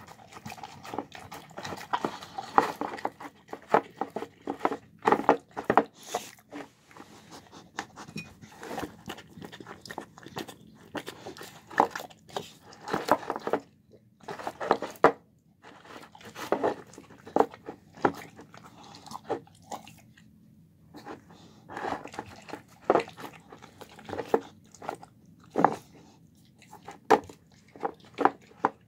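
A bulldog eating from a plastic bowl: irregular wet chewing, smacking and licking with sharp crunches, on a meal of chicken, rice, cabbage and apple. The eating pauses briefly twice, about halfway and two-thirds of the way through.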